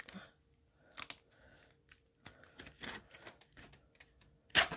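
Light, scattered clicks and soft rustling of a diamond painting canvas being handled in the fingers, with a louder, sharper rustle near the end.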